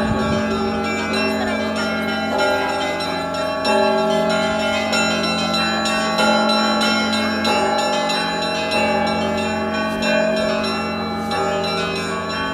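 Church bells ringing: several bells sound together, with a fresh stroke about every second and their tones overlapping over a deep steady hum.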